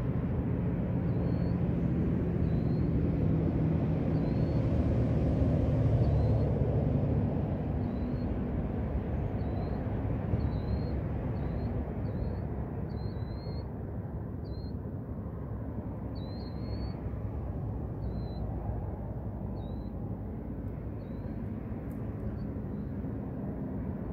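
Low rumble of a vehicle engine, loudest in the first several seconds and then easing off, with a small bird giving a short, repeated chirp about once a second over it until near the end.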